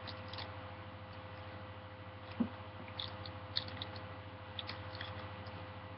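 Faint scattered crinkles and clicks of a Magic: The Gathering booster pack being handled, a few clustered around the middle and again near the end, over a steady low electrical hum.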